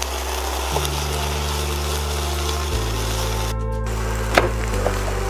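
A silicone spatula stirs diced peppers in a frying pan. Then a kitchen knife slices a yellow bell pepper on a bamboo cutting board, and the blade knocks sharply on the board once, a little over four seconds in. Background music plays throughout.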